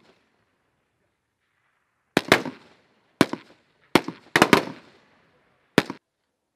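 Rifle shots from several shooters on a firing line. They come at uneven spacing: two close together about two seconds in, single shots, then a quick cluster of three or four, and a last shot near the end. Each crack has a short echoing tail.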